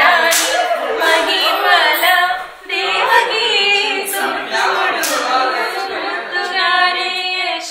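Indian-style song: voices singing a melody that bends and glides in pitch, with little instrumental accompaniment.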